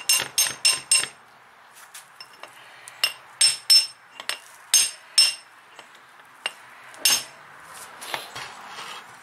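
Hammer striking a brass punch against the A/C clutch field coil on an FS10 compressor, driving the pressed-on coil off the compressor's nose a little at a time. Short metallic taps with a ring: a quick run of about five in the first second, then single taps every half second or so.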